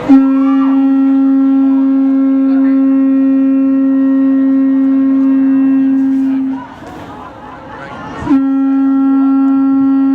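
Conch shell trumpet blown in long, steady single-pitch blasts. The first holds for about six and a half seconds; after a short break a second blast begins a little past eight seconds in.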